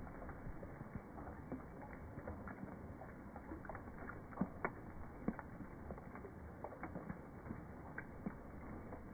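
Raindrops falling on a small pond's water surface and water-lily leaves: irregular drips and plinks over a soft steady patter, with a few louder drops about four and five seconds in.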